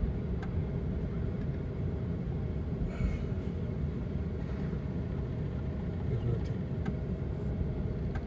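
Steady low rumble of a car's engine and tyres, heard from inside the moving car's cabin, with a few faint ticks.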